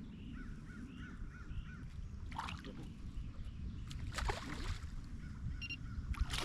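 Faint bird calls, a short run of repeated arching notes near the start, over a steady low rumble of wind and water around the kayak. A couple of short swishes of noise come midway.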